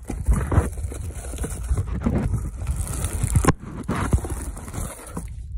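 Cardboard packaging scraping and rustling, with knocks and bumps, as the welder is worked out of its shipping box.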